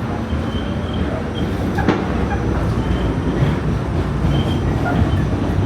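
New York City subway car running, heard from inside the car: a steady low rumble of wheels on rail, one sharp click about two seconds in, and short faint wheel squeals now and then.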